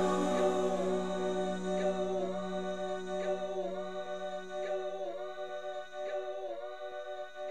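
Background music: layered vocal harmony holding a chord, the voices dipping in pitch together every second or so, slowly getting quieter.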